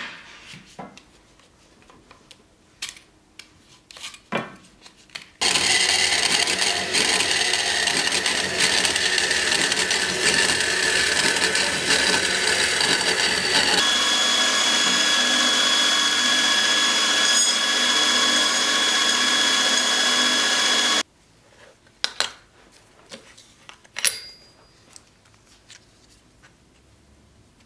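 A power tool runs steadily for about fifteen seconds, its pitch shifting about halfway through, then cuts off abruptly. A few light knocks and clicks come before and after it.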